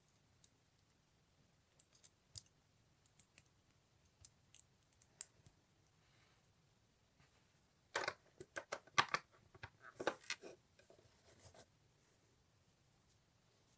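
Small plastic LEGO bricks being handled and pressed together. There are scattered single clicks, then about eight seconds in a few seconds of denser, louder clattering.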